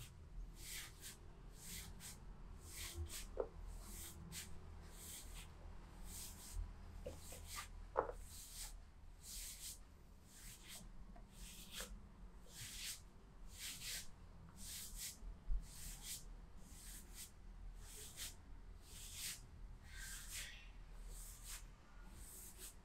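Hands rubbing rhythmically over skin or cloth in a back massage: a steady run of faint, soft swishes, about two strokes a second, over a low hum.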